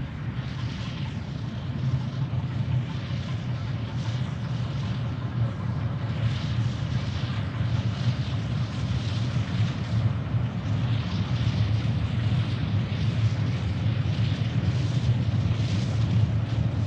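NSWGR AD60-class Beyer Garratt steam locomotive 6029 working a train: a steady low rumble with rhythmic exhaust chuffs about once a second, growing slightly louder as it nears.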